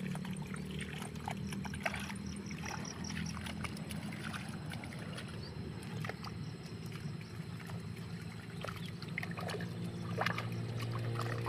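Hands and feet sloshing and squelching in wet paddy mud as a rice seedbed is worked flat by hand, in irregular wet slaps and splashes. A low steady hum runs underneath.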